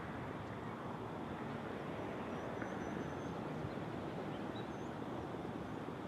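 Steady outdoor rushing noise with no siren tone, and a few faint high bird chirps in the middle.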